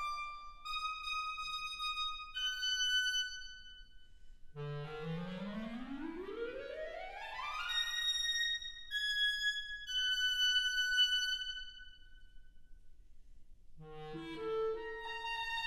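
Solo clarinet playing alone: high held notes, then about four and a half seconds in a long smooth glissando sweeping up from the bottom of its range to the high register, more high held notes, and near the end a few low notes leading into a long sustained note.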